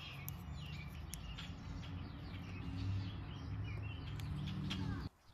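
Small birds chirping and twittering, many short quick calls, over a steady low hum; both cut off suddenly near the end.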